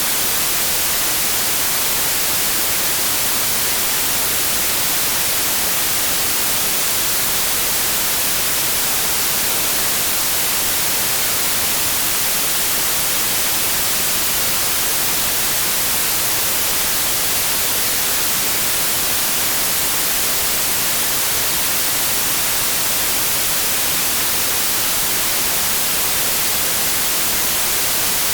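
Steady white noise: an even, unchanging hiss, bright and strongest in the high frequencies.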